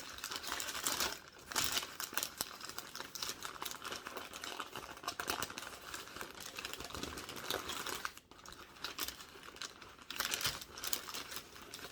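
A paper sandwich wrapper being unwrapped and crumpled by hand: continuous dense crinkling and rustling, with a couple of brief pauses.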